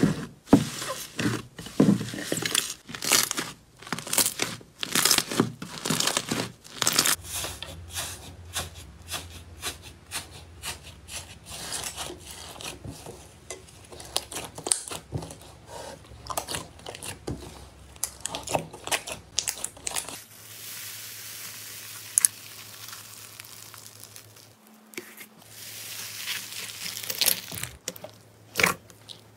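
Hands pressing, squeezing and kneading slime: a dense run of sticky crackles, pops and squelches, quieter for a few seconds after two-thirds of the way through, then popping again near the end.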